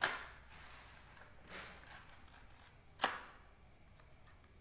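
Plastic blister packaging of a children's toothbrush crackling as it is picked at by hand: a sharp crackle at the start, a softer rustle about a second and a half in, and another sharp crackle about three seconds in.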